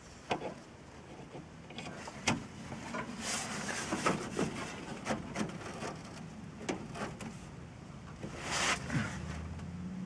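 Scattered clicks, knocks and rustles of hands working inside a gas furnace cabinet, over a low steady hum. The draft inducer motor does not start.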